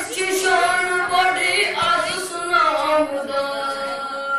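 A boy's solo voice chanting a mourning elegy (noha) in a slow, ornamented melody, ending on a long held note.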